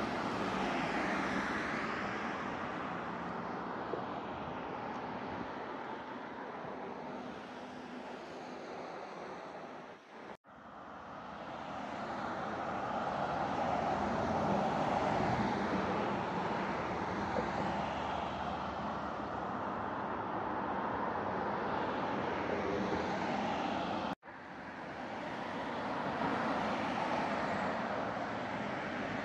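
Steady outdoor traffic noise with vehicles passing by, each pass swelling and fading. The sound cuts out abruptly twice and then resumes.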